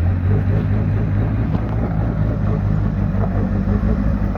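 Off-road 4x4 engine running hard under load: a loud, steady low drone that swells up suddenly at the start and holds.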